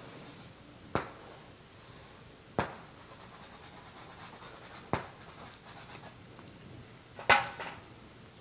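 Four short, sharp taps or knocks, spaced about two seconds apart; the last, near the end, is the loudest.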